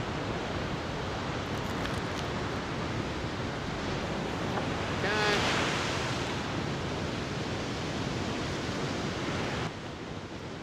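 Ocean surf breaking on the beach, a steady rushing noise mixed with wind on the microphone. A short high-pitched call comes through about five seconds in, and the rushing drops a little near the end.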